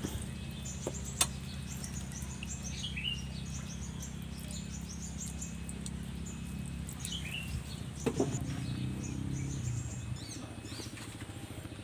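Small birds chirping repeatedly over a steady low hum, with a single sharp click about a second in.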